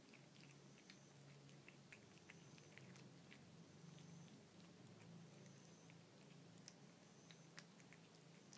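Faint wet chewing and licking of a cat eating tuna cat food in soup from a saucer: irregular small clicks and smacks, over a steady low hum.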